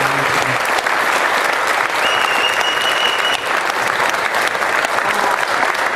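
Audience applauding steadily. A thin high tone rings over the clapping for about a second and a half, starting about two seconds in.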